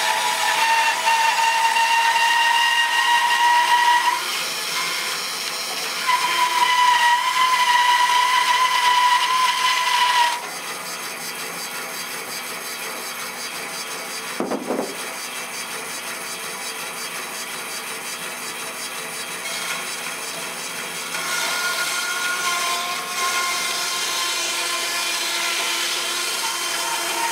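Bandsaw running and cutting through a thick birch log, with a steady high whine. The whine fades about ten seconds in, leaving a quieter steady hum, and comes back strongly after about twenty seconds.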